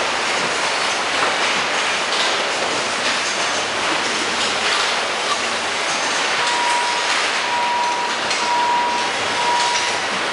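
Loud steady din of a car assembly line: conveyor machinery and large overhead fans running, with some clatter. From about six seconds in, a high beeping tone repeats several times, about once a second.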